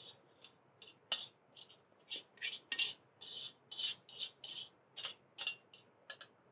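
Metal slotted spatula scraping fried rice out of a wok, a quick series of irregular scrapes about two a second, with one sharp knock of metal on the wok about a second in.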